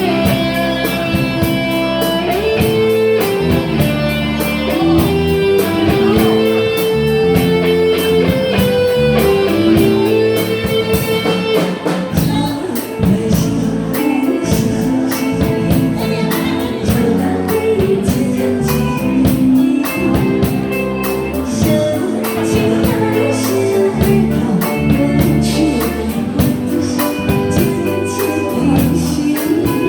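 Instrumental music: the introduction of a Chinese pop ballad, a melody line over chords and a steady beat.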